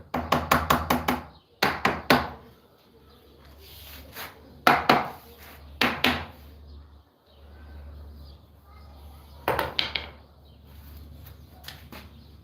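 Bursts of rapid hammering on wood, several quick blows at about five a second in each burst, with pauses between. A low steady hum runs underneath.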